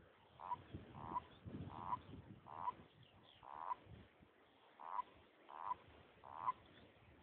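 A frog calling repeatedly: about ten short croaks, roughly one every two-thirds of a second.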